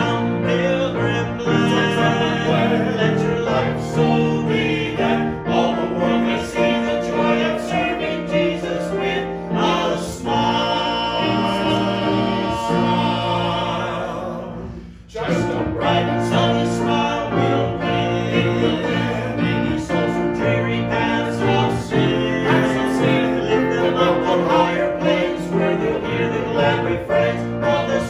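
Church music: voices singing with instrumental accompaniment. A long held note about ten seconds in fades away to a short break near fifteen seconds, then the singing picks up again.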